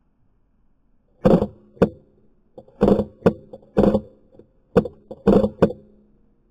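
Airsoft rifle firing single shots, about eight sharp cracks at an irregular pace, each followed by a brief ringing hum.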